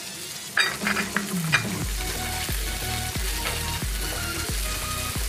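Diced green capsicum sizzling in oil in a non-stick frying pan, with a few clicks and scrapes of a spatula in the first second and a half.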